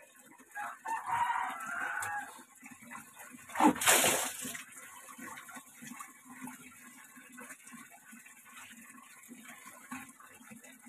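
Bath water poured from a plastic dipper over the head and splashing onto a concrete floor: one loud splash about four seconds in, followed by quieter trickling and dripping.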